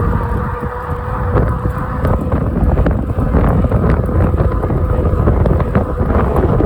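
Wind buffeting the microphone during a ride on a Hanevear H100 all-wheel-drive ebike, a loud, steady low rumble. A faint steady high tone runs under it for about the first two seconds.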